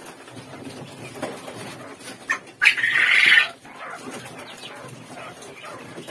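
Caged quail calling and chirping, with one loud harsh call lasting about a second near the middle as a bird is being handled.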